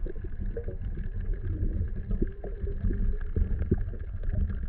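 Muffled underwater sound picked up by a submerged camera: a steady low rumble of moving water with scattered faint clicks.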